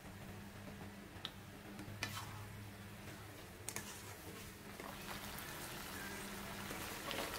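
Rice vermicelli being stir-fried in a nonstick wok: a faint sizzle with a few sharp clicks and scrapes of a plastic spatula against the pan. The sizzle grows louder in the second half as leafy greens drop into the pan, over a low steady hum.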